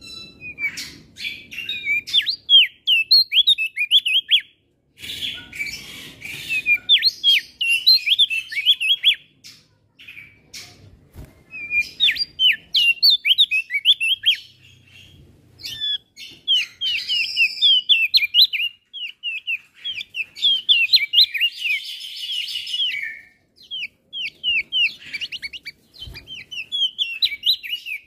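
A male opior jambul, a small Indonesian songbird of the white-eye family, singing a fast, excited song of high chirps and twitters, in bursts of several seconds broken by short pauses.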